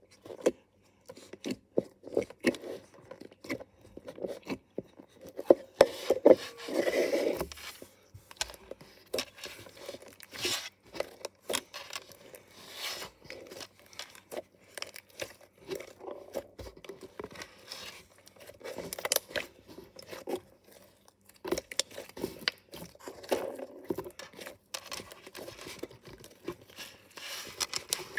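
Thick slime being kneaded, squeezed and stretched by hand, giving irregular sticky clicks and small pops of trapped air, with a denser run of crackling about six to seven seconds in.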